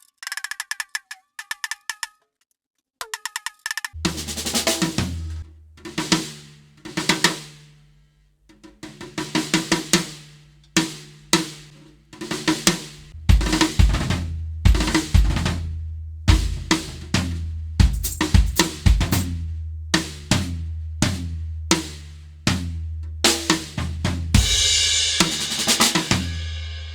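A maple Fat Custom Drums kit being played to test a freshly remounted rack tom. First come a few seconds of light, quick stick taps, then a full groove with bass drum, snare, toms and cymbals, with a crash wash near the end that rings out. The rack tom holds firmly in its rubber bushings throughout.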